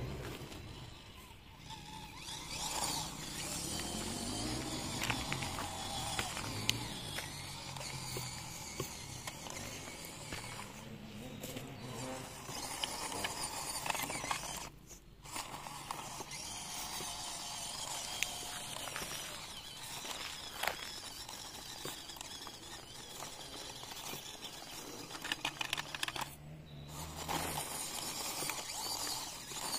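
Small electric motor and gears of a 1/24-scale FMS FCX24 Power Wagon RC crawler whining as it drives, the pitch rising and falling with the throttle, with many small clicks and scrapes along the way.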